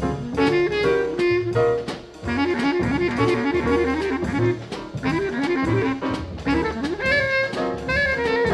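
1964 small-combo jazz recording of clarinet and bass clarinet, trumpets, trombone, piano or vibraphone and drums: a horn plays a fast run of short notes over the drums, with higher horn notes joining near the end.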